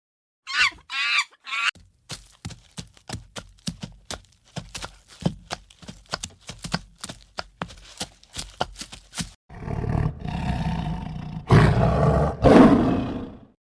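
Animal sounds: three short, high, squeaky calls, then a run of irregular sharp clicks, then two long, rough, loud calls near the end.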